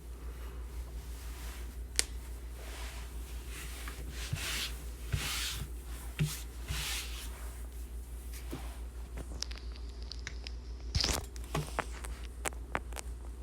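Rustling and tearing of paper or plastic wrapping with a few sharp clicks and taps, in swells between about four and seven seconds in, over a steady low hum.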